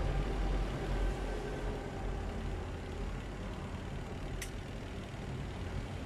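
Steady low rumble with a hum, with one short sharp click about four and a half seconds in.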